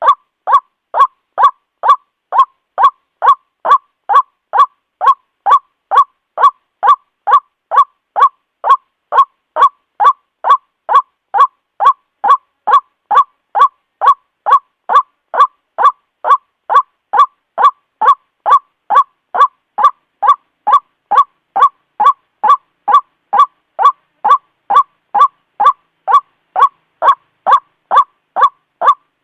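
White-breasted waterhen calling, a repeated 'ruak' note about two times a second in an even, unbroken rhythm: the bird's call used as a lure to draw waterhens in.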